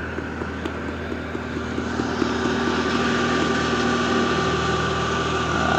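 Engine idling steadily: a constant low hum with a fixed higher whine above it, growing a little louder about two seconds in.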